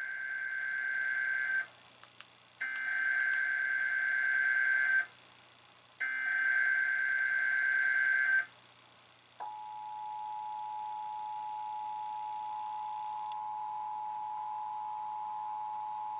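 Emergency Alert System SAME header: the end of the first of three screechy digital data bursts, then two more, each about two and a half seconds long with about a second between them. About nine seconds in, the steady two-tone EAS attention signal starts and holds for about eight seconds, sounding the start of a Required Monthly Test.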